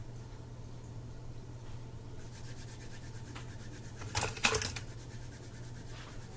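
Hands rubbing together, a soft dry hiss, followed by a couple of sharp slapping strokes about four seconds in, over a steady low hum.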